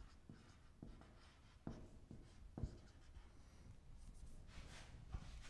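Marker pen writing on a whiteboard: faint scratching strokes with a few light taps as the tip meets the board.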